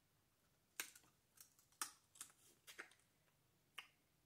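Shellfish shell being cracked and picked apart by hand: a string of faint, sharp clicks and crackles, about eight over a few seconds.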